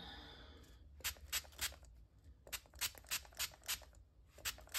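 Hand trigger spray bottle spritzing mist in quick runs of short squirts: three, then about six, then two more near the end.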